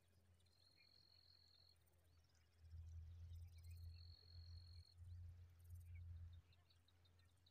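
Quiet outdoor ambience: two long, steady high-pitched calls, one near the start and one in the middle, with faint scattered chirps. A low rumble, the loudest sound, runs for about four seconds in the middle.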